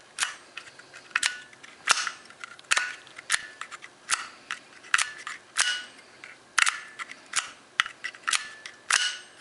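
A run of about fourteen sharp clicks, roughly one every two-thirds of a second, from a column-mounted neutral safety switch being handled and worked by hand.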